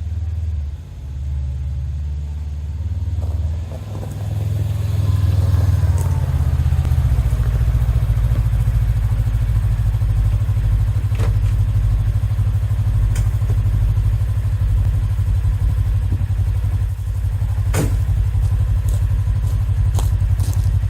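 Kawasaki KRX 1000 side-by-side engine running. It shifts in pitch for the first few seconds, then settles into a steady, even idle rumble about seven seconds in, with a few sharp clicks.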